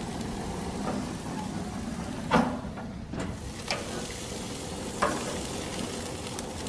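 Quail sizzling on a hot gas grill, with a few sharp clicks of metal tongs against the grate as the birds are turned, the loudest about two seconds in.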